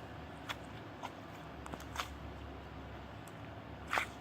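Scattered small clicks and light rustles of hands handling small objects, with the sharpest click near the end.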